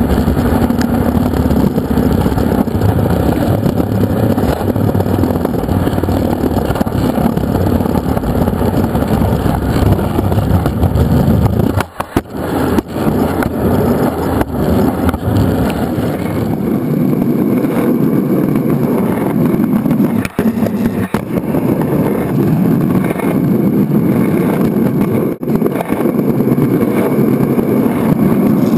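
Skateboard wheels rolling over pavement, heard from right beside the truck under the deck: a loud, steady rumble that briefly drops out a few times.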